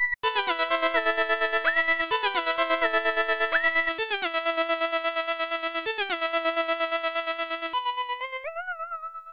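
Techno music: a bright synthesizer lead holding sustained notes that pulse rapidly, sliding quickly in pitch from note to note, with no drums. It fades out near the end.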